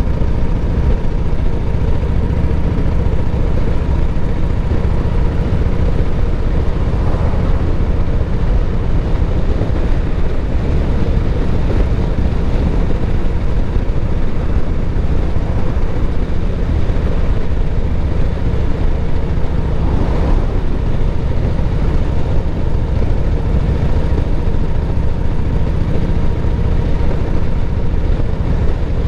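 Harley-Davidson V-twin motorcycle riding steadily at road speed, a loud, even rumble with no let-up.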